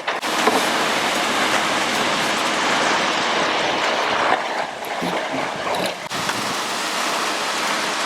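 Wet concrete pouring down a ready-mix truck's chute into the pad forms, a steady rushing slide of concrete, with a brief dip about six seconds in.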